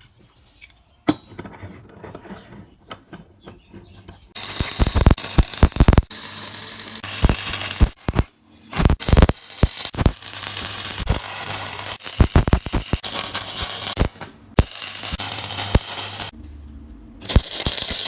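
Angle grinder cleaning up steel ahead of welding, running in several long loud stretches with short pauses, after a few seconds of metal parts being handled.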